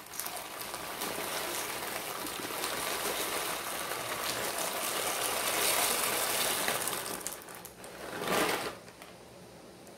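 Small dry macaroni pouring from a packet into a pot of boiling water: a dense, steady crackling rattle for about seven seconds. A short burst of noise follows about eight seconds in, then only faint bubbling.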